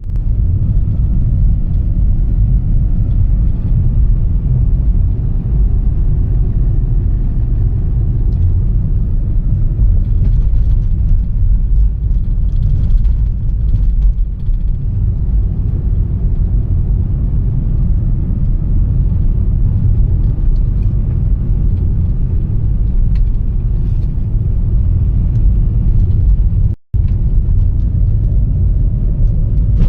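Toyota Corolla on the move: a steady low rumble of engine and road noise. The sound cuts out for an instant near the end.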